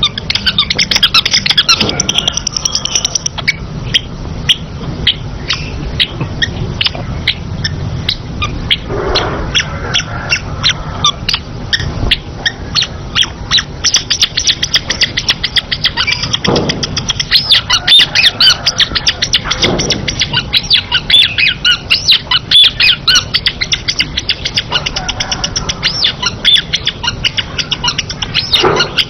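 Long-tailed shrike (pentet/cendet) singing in full voice: a long, unbroken run of rapid, harsh chattering notes.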